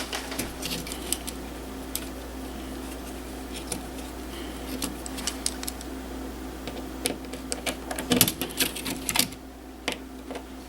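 Scattered small clicks and taps of screws and a thermostat wall plate being handled and unscrewed, over a steady low hum.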